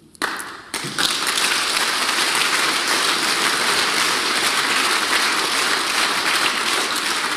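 Audience applauding: a few claps at first, swelling to full, steady clapping about a second in, and easing slightly near the end.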